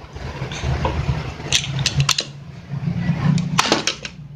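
Insulation being stripped off a standing fan's speed-selector wires with a blade and pliers: scraping with a few sharp metallic clicks, several in quick succession near the end, over a low steady hum.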